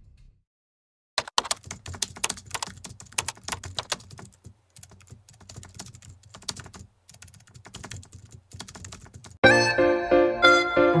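Rapid, irregular computer-keyboard typing clicks, most likely a typing sound effect laid under a text card. Music with a melody starts near the end.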